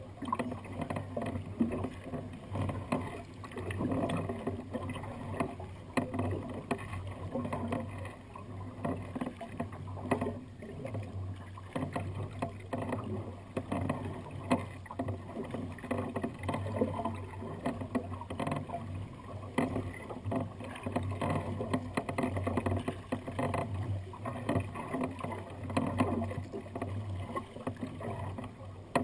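Water lapping and splashing against the hull of a sea kayak under way in light chop, rising and falling unevenly.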